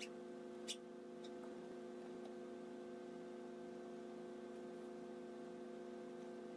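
A steady hum runs throughout, with a few light clicks in the first second or so, the loudest about 0.7 s in, and fainter ticks later: handling noise from gloved hands fitting a fuel filter and its hoses.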